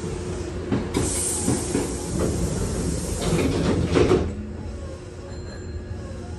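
Hankyu 7000 series train's air-operated passenger doors closing: a sudden hiss of air about a second in, then the doors slide shut and close with a thud about four seconds in. The stopped train's steady hum runs underneath.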